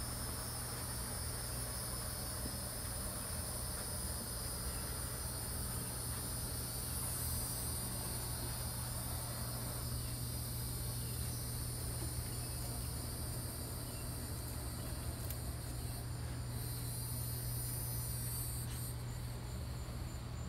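Steady outdoor chorus of insects, a continuous high-pitched trilling drone, over a steady low hum.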